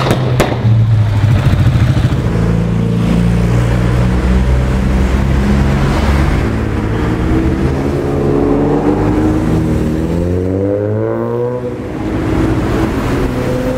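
A couple of sharp exhaust pops at the very start, then Mazda MX-5 roadsters driving past in a line with their four-cylinder engines running. One engine revs up with a rising note from about eight seconds in and eases off near twelve seconds.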